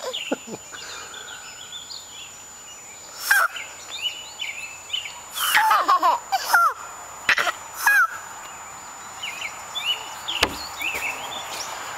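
A blade of grass stretched between the thumbs and blown as a reed whistle, giving a few loud, shrill squawks with bending pitch, the strongest between about five and eight seconds in. A baby laughs along, with birds chirping in the background.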